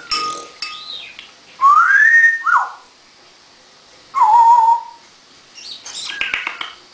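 African grey parrot whistling. About a second and a half in comes a loud rising whistle, then a short falling note, and about four seconds in a whistle that dips and then holds steady. Rougher, noisy calls follow near the end.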